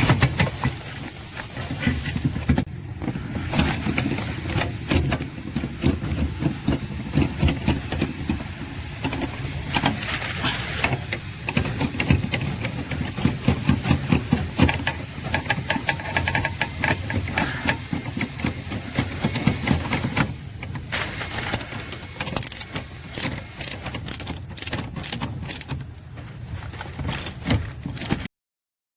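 Hand tools and metal parts clicking, clattering and rattling while the brake pedal assembly is refitted under a car's dashboard. There are many irregular knocks and clicks, with a quicker run of clicks a little past the middle, and the sound cuts off abruptly near the end.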